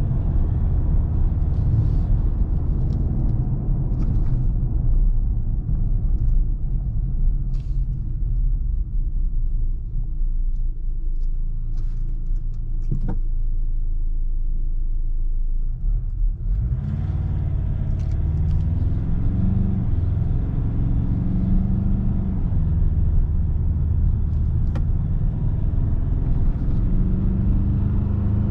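Ford Ranger Raptor pickup on the move: a steady low rumble of engine and tyres. It eases briefly about sixteen seconds in, then comes back with an engine note rising and falling as the truck pulls away again.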